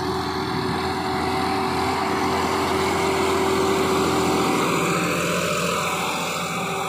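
Swaraj 969 tractor's diesel engine running steadily under load as it drags a laser land leveller through dry soil, a little louder in the middle as it passes close.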